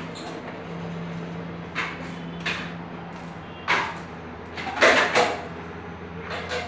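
Plastic toddler tricycle being pushed and jostled on a tiled floor: short rattling, scraping bursts of plastic wheels and parts, the loudest about five seconds in, over a steady low hum.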